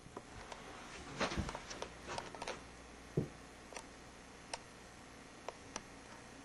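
Faint scattered knocks and clicks over a low room hiss: a cluster in the first three seconds ending in a dull thump, then a few single sharp clicks.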